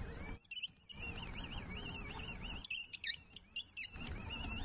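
Birds chirping in short bursts, over a steady wavering whine that rises and falls a few times a second.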